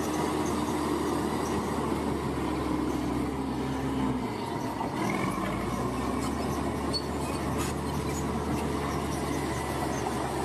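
Komatsu bulldozer's diesel engine running steadily under load as it pushes earth, with a metallic squeal from its crawler tracks. The engine note dips and shifts about four seconds in.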